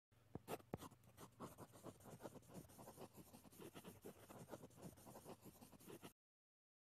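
Faint, irregular scratching and tapping, several strokes a second, cutting off abruptly about six seconds in.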